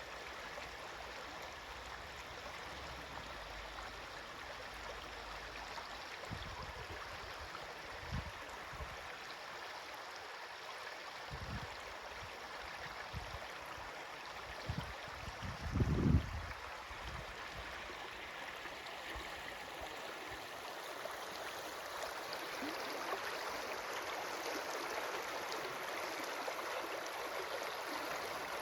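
Steady rush of flowing water. A few low thumps come through in the middle, the loudest about two-thirds of the way in.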